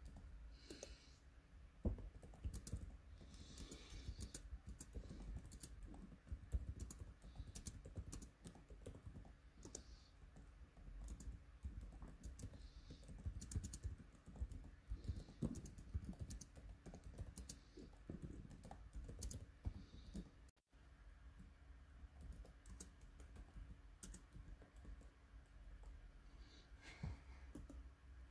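Faint, fast, irregular clicking of laptop keyboard keys.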